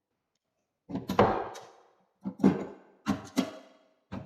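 Several sharp knocks on the wooden wardrobe as its hanging pole is worked loose, each ringing briefly before it fades: one about a second in, another midway, two in quick succession around three seconds, and one more near the end.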